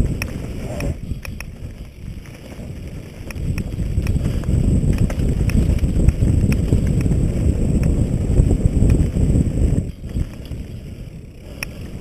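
Wind buffeting a helmet-mounted camera's microphone on a downhill mountain-bike descent, with the tyres running over dirt and sharp clicks and rattles from the bike. The rush grows louder from about three seconds in and drops away sharply near ten seconds.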